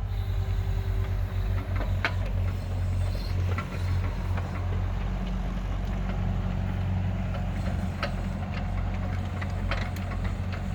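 Komatsu PC30 mini excavator's diesel engine running steadily, with a few faint clicks or knocks scattered through.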